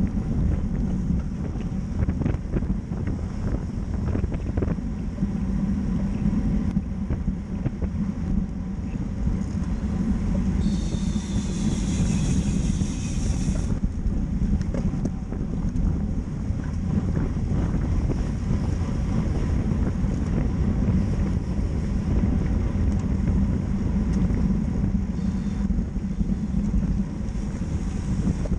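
Wind buffeting a bike-mounted camera's microphone with steady road and tyre rumble from a racing bicycle moving at about 25 mph in a pack. For about three seconds midway, a higher buzz joins in as the rear hub's freewheel spins while the rider coasts.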